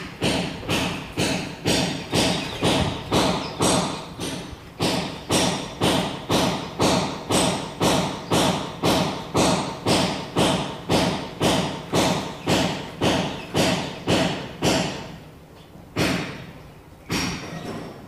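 Loud, regular thumping, about two blows a second with a short ring after each, like something being pounded over and over. It stops about fifteen seconds in, and two more single thumps follow.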